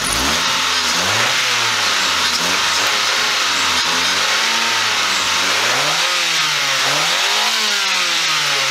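Car's gasoline engine, running with canola oil in the crankcase instead of motor oil, is revved up and let fall back about six times in a row, its pitch rising and falling with each blip of the throttle.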